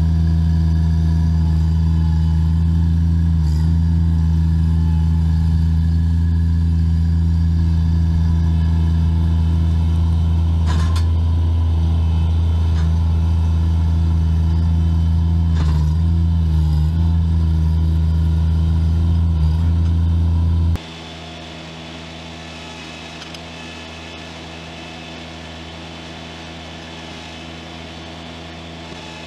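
Bobcat mini track loader's engine running steadily and loudly while its root grapple works a tree stump, with a few short sharp clicks. About 21 seconds in the sound cuts abruptly to a quieter, steady engine run.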